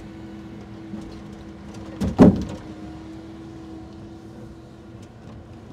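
Steady hum of a truck-mounted timber crane running, heard from inside its cab, with one loud heavy wooden thump about two seconds in as a timber mat of roughly 800–900 kg is set down onto the stack.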